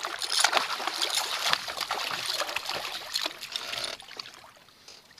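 Water splashing and dribbling as a hooked striped bass thrashes at the surface beside the boat, stopping abruptly about four seconds in.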